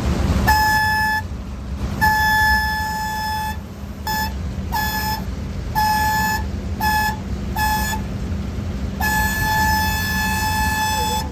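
A horn sounding in an irregular series of short and long honks (about eight, the last one long, two seconds or more), over a steadily running engine.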